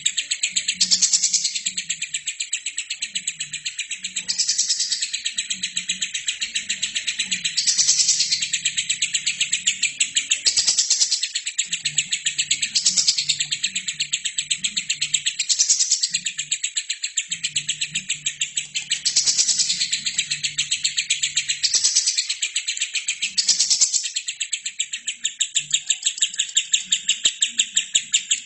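Albino lovebird chattering in one long unbroken stream of rapid, high chirps that swells louder every few seconds.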